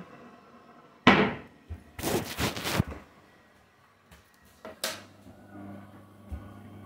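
A sharp knock like a cupboard door shutting about a second in, then a short rattling clatter, a smaller click near five seconds, and a faint steady low hum after that.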